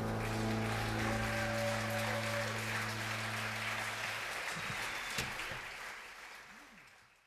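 Audience applauding as the band's final held chord dies away; the applause then fades out near the end.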